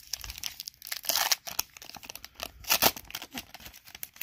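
A trading-card pack's crimp-sealed wrapper torn open and crinkled by hand, with irregular crackles, loudest a little after a second in and again near three seconds.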